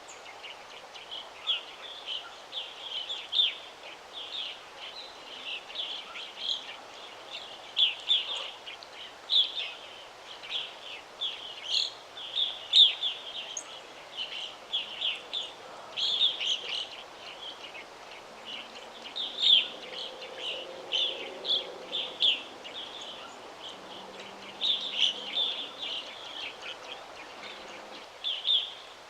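Several small songbirds chirping and singing in quick, overlapping bursts of high notes over a steady hiss of outdoor background noise.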